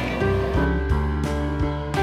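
Background music: a tune of held notes changing about every half second over a steady beat.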